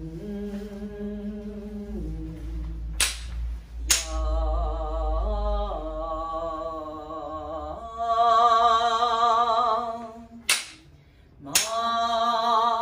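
Solo voice singing a shirabyōshi song in long, slow held notes with a wavering vibrato, the pitch stepping between notes. Two pairs of sharp knocks about a second apart cut in, one pair a few seconds in and one near the end, with a short hush before the last knock.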